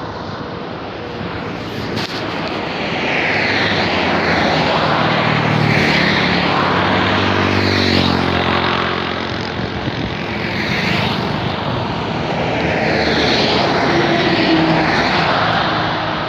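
Road traffic passing by: cars, motorbikes and scooters going past one after another, engine noise swelling and fading with tyre noise, with one engine's drone strongest around the middle.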